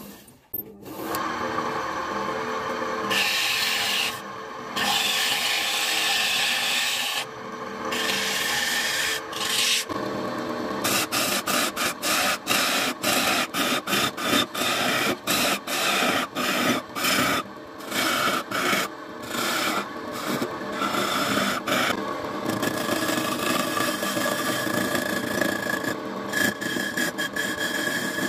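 A hand-held turning tool scraping and cutting into a spinning block of wood on a wood lathe, with the lathe running. Through the middle the scraping breaks into short repeated strokes, about one or two a second.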